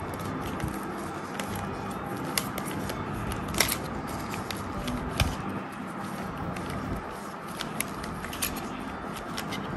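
Plastic Banana Cube puzzle being turned by hand, its layers giving irregular sharp clicks and clacks, the loudest about three and a half seconds in, over a steady background hiss.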